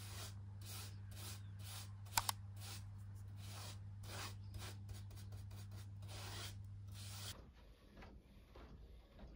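Paint being brushed onto a wooden shelf board: repeated rubbing strokes, about two a second, over a steady low hum, with a brief high squeak about two seconds in. The strokes stop abruptly about seven seconds in, leaving faint room tone.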